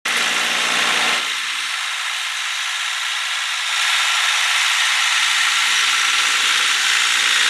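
John Deere compact tractor running while it pulls a rotary tiller through dry soil: a steady mechanical whir and hiss of engine and tiller. It is a little louder for the first second and again from about halfway on.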